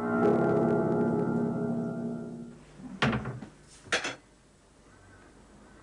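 Piano keys pressed down by a cat standing on the keyboard: a jangled cluster of notes ringing together and slowly fading away. Two short sharp knocks follow about three and four seconds in.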